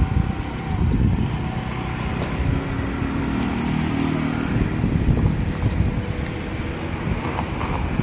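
City street traffic with wind buffeting the microphone. A passing vehicle's engine hums steadily for about two seconds mid-way.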